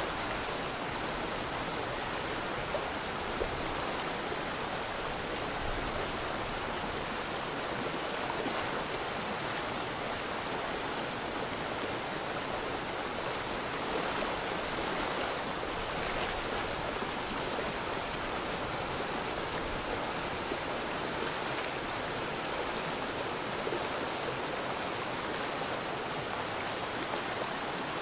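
Steady running water, an even rush that does not change.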